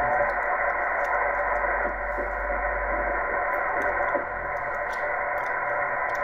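Amateur radio transceiver receiving on the 10-metre band at 28.517 MHz: steady band static hisses from its speaker, with a weak voice barely coming through the noise.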